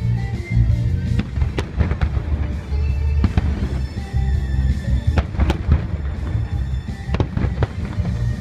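Aerial fireworks bursting, with repeated sharp bangs and crackling, over music with long held notes.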